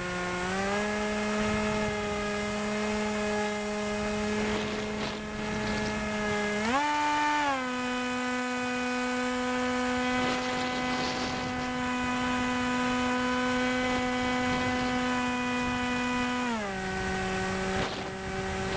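RC airplane's motor whining steadily in flight, heard from a camera mounted on the plane. The pitch rises as it starts and jumps up briefly about seven seconds in, then settles a little higher than before. It drops back down a couple of seconds before the end and fades out.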